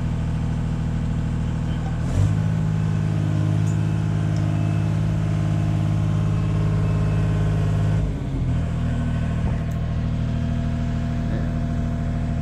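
Engine of an aerial work-platform lift running steadily, growing louder for about six seconds from about two seconds in, then settling back to idle.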